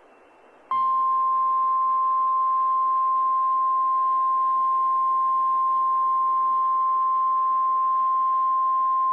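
Weatheradio Canada's 1050 Hz warning alarm tone, signalling that a weather warning bulletin follows. It is one steady, unbroken tone over a faint hiss, starting just under a second in.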